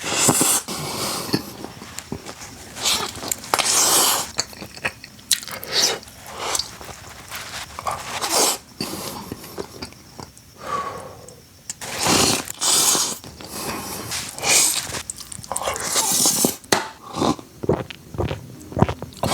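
A person biting and chewing fast food close to the microphone: irregular wet mouth noises come in uneven bursts, with short pauses between bites.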